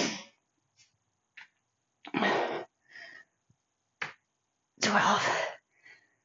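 A woman breathing out hard twice, about three seconds apart, in time with heavy kettlebell squats, with a couple of faint clicks in between.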